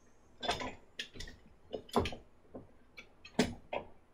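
Zyliss vise being seated and worked into place in its notch on a flat milling table: a string of about nine irregular clicks and light knocks, the loudest about three and a half seconds in.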